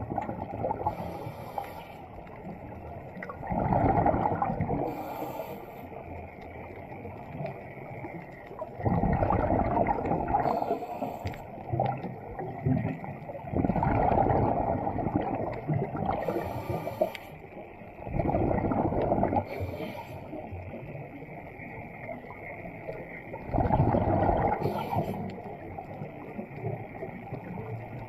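Underwater breathing sounds of a scuba diver. A loud, low bubbling rush of exhaled air comes about every five seconds, with short high hisses from the regulator near each breath, over a steady underwater hum.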